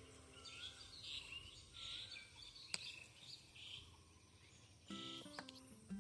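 Faint bird chirps in a quiet garden, with one sharp click a little before halfway; background music comes back in near the end.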